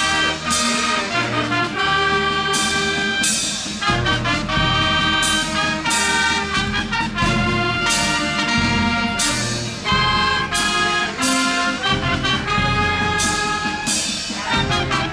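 Town brass band playing a march: brass carries the tune over a steady beat, with a cymbal crash on about every beat.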